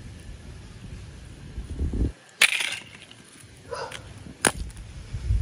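Ice chunks cracking and knocking on a concrete surface, in two sharp cracks: one about halfway through and another near the end.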